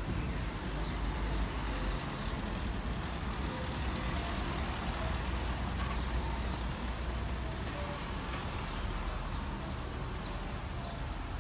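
Street ambience of light town traffic: a car and then a van driving past, over a steady low rumble.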